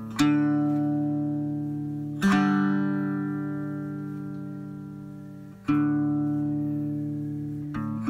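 Background music: slow chords strummed on a guitar, one every two to three seconds, each left to ring out and fade.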